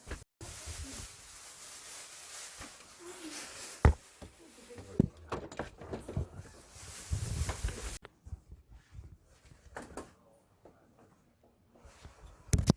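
Scraping and rustling from handwork on plumbing in a tight space: a steady scratchy rustle that stops abruptly about eight seconds in, with a few sharp knocks along the way, the loudest near the end.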